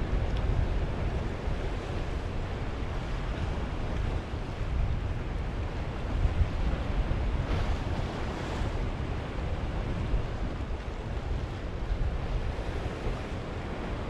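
Sea waves washing against a rocky shore, with wind rumbling on the microphone. About halfway through, one wave splashes louder and brighter.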